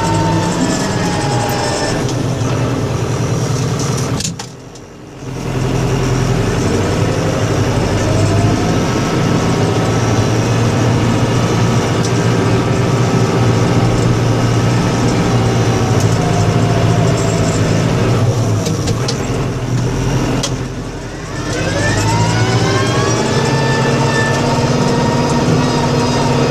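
Vehicle engine running while plowing snow, its pitch sliding up and down as it changes speed. The sound drops away sharply twice for about a second, and after the second drop the engine revs back up.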